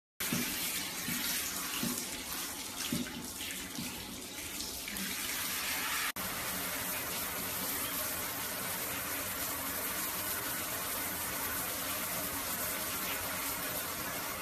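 Handheld shower head spraying water in a bathtub, a steady hiss that drops out for an instant about six seconds in and then runs on.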